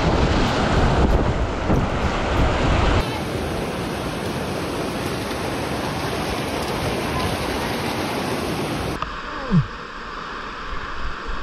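Rushing whitewater of a river rapid with wind buffeting the microphone. The sound changes abruptly twice, about three and nine seconds in.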